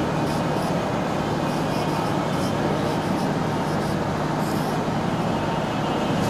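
Steady background noise with a low hum, and faint short scratches of a marker pen writing on a whiteboard.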